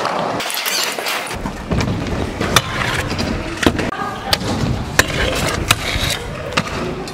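Stunt scooter wheels rolling on a concrete skatepark floor, broken by several sharp clacks as the scooter's deck and wheels hit the ramps and a metal rail.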